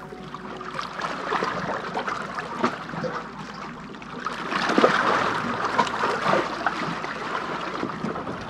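Lake water lapping and splashing against shoreline rocks, with irregular small splashes that grow louder for a couple of seconds about halfway through.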